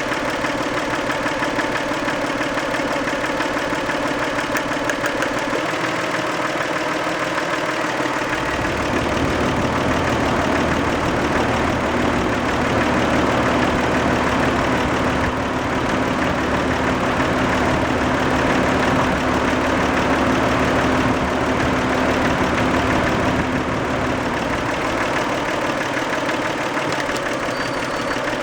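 Toyota 2VZ-FE 2.5-litre V6 running with a rapid knock. From about a third of the way in it grows louder and deeper, with a steady hum, then settles back near the end. This is the knock that shows up when the engine is warm; the owner never found its cause and guessed sludge or varnish stuck on a valve shim or bucket.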